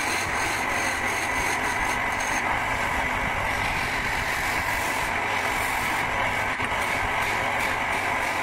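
Wood lathe running steadily while a hand chisel cuts into a spinning wooden handle blank, giving a continuous machine drone with the scrape of the cut.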